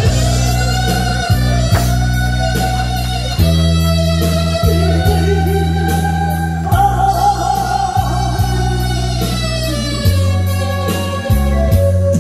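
Instrumental music from a stage performance: a long, gliding lead melody with vibrato over a steady bass line and beat.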